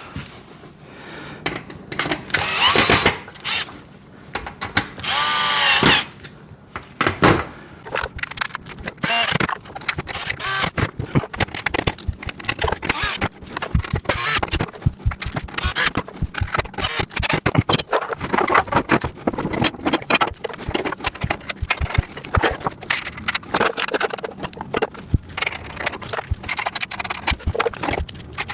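Power drill-driver running in two short bursts, its pitch rising and falling, as it drives the caster screws into the steel rack's bottom tray. After that comes a long run of rapid metal clicking and rattling as the caster hardware is fastened.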